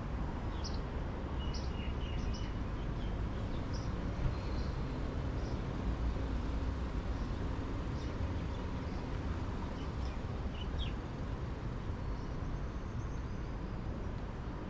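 Steady rumble of city traffic with small birds chirping in short, high notes, most often in the first half.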